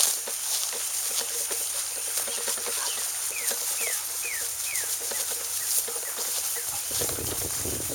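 A bird calls a quick run of four falling whistled notes about three seconds in, followed by a few fainter ones, over constant crackling outdoor noise.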